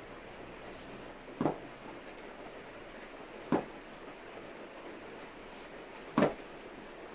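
Three short knocks, roughly two to three seconds apart, over a faint steady hiss.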